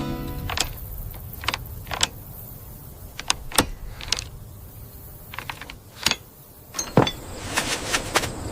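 A series of irregular sharp clicks and light knocks, about fifteen in all and bunched more closely near the end, over a low steady rumble.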